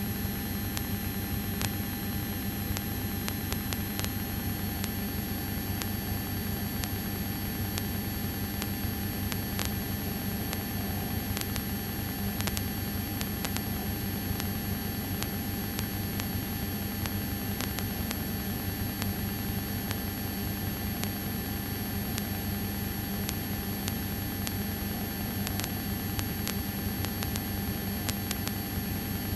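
Light aircraft's piston engine droning steadily as heard in the cockpit, under a constant hiss, with faint clicks scattered through.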